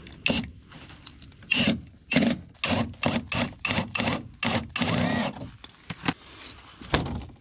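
Hand tool working a rusty bolt that won't grip: a quick run of short rasping strokes, about two to three a second, starting near two seconds in and stopping about five seconds in, with a few light knocks around them.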